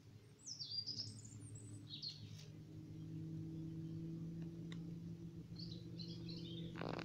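Wild birds chirping and singing in short high phrases, three times, over a steady low hum. A brief rustle comes at the very end.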